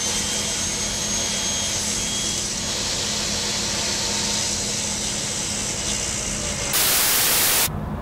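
Table saw running steadily with a low motor hum as an oak board is fed through it on a miter gauge. Near the end there is a flat burst of static hiss lasting about a second, and then the sound drops.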